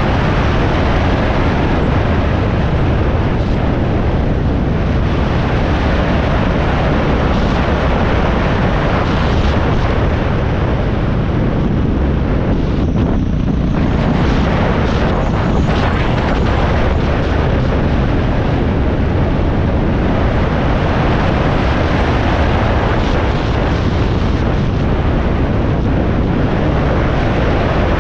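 Dual-sport motorcycle riding steadily along a gravel road, heard from the rider's seat: a constant engine drone mixed with heavy wind rush over the microphone.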